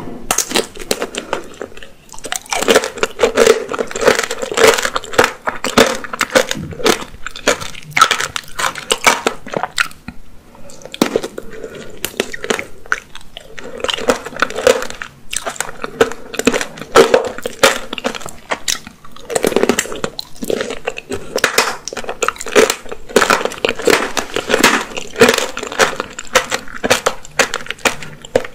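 Close-miked biting and chewing of a candied apricot tanghulu: the hard sugar shell cracks and crunches between the teeth in dense runs of crackling. The crunching comes in bouts, with short lulls about ten seconds in and again a little after eighteen seconds.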